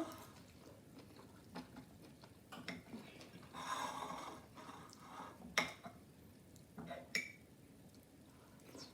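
Cutlery clinking and scraping against a plate while eating: a few separate sharp clinks, with a longer scrape about four seconds in.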